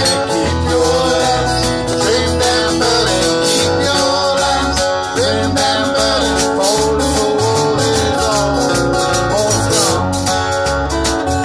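Live blues band playing: acoustic guitar strummed and electric guitar through PA speakers, with drums keeping a steady beat. A lead line with sliding, bent notes rides on top.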